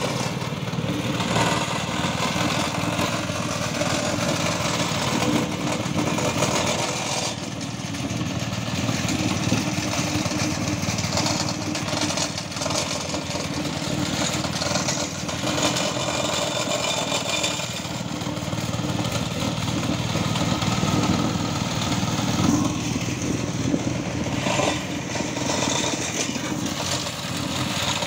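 Small petrol-engine vibratory plate compactor running steadily as it is worked across loose sand and soil, compacting the ground.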